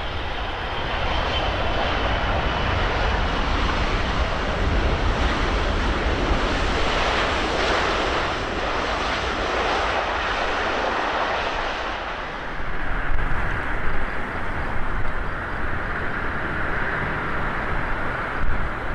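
Landing Boeing 777-200LR's jet engines: a loud, steady rush of jet noise with a faint high whine. About twelve seconds in it gives way to a quieter, unevenly gusting jet noise from an arriving Airbus A320.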